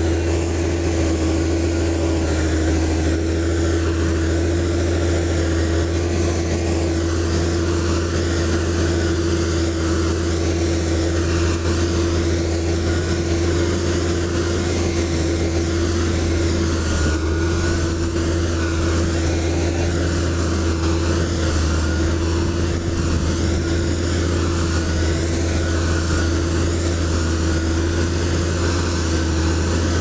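Heavy construction machine's diesel engine running at a steady speed, a constant low drone with no change in pitch or load.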